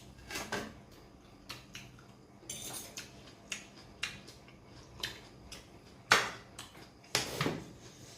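Eating sounds up close: scattered clicks and taps of cutlery on a dish, with louder smacks about six and seven seconds in.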